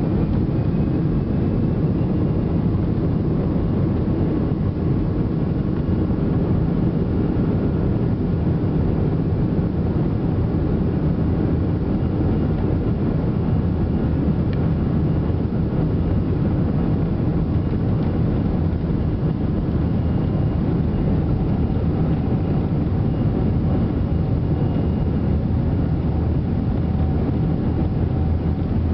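Airbus A320-200 cabin noise heard from a window seat over the wing: the jet engines running and the airframe rolling on the ground give a steady low rumble, with faint steady whines above it.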